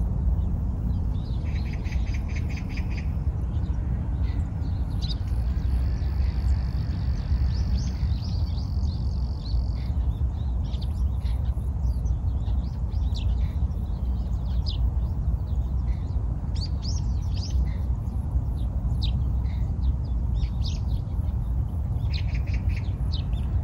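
Small birds chirping in scattered short calls, with a quick rapid trill near the start and again near the end, and a thin steady high tone held for about five seconds early on. A steady low rumble runs underneath and is the loudest part.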